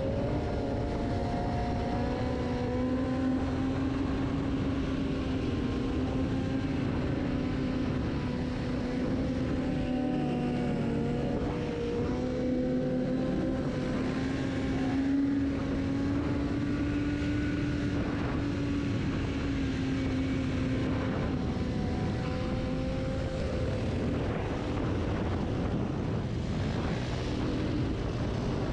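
Motorcycle engine running at a steady cruising speed during a ride, its pitch drifting gently up and down, over a constant rush of noise.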